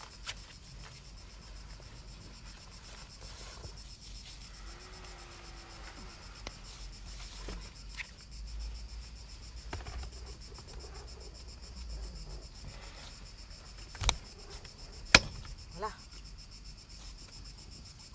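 Steady high chirring of insects in the garden, with two sharp knocks about a second apart late on.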